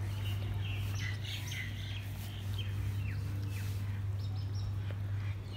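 Small birds chirping: many short, high, falling chirps in quick succession, over a steady low hum.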